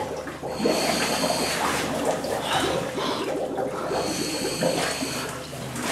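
Scuba regulator breathing, two long hissing breaths, over water gurgling and sloshing as a diver moves into a flooded tunnel.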